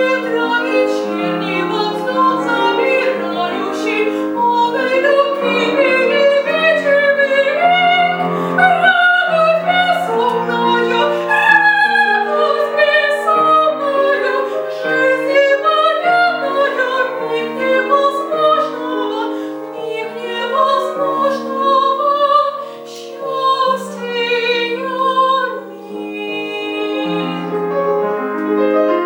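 A woman singing a Russian romance in classical vocal style with vibrato, accompanied by piano.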